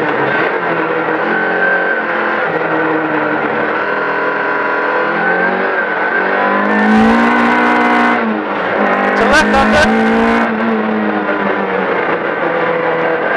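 Rally car's engine heard from inside the cabin, its pitch rising and falling as it is driven hard through corners. Two stretches of harsh noise break in about halfway through, a second or so apart.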